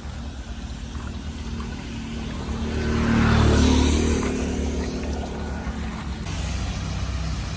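A car passing on the wet road: engine rumble and tyre hiss swell to a peak a little past the middle, then fade away.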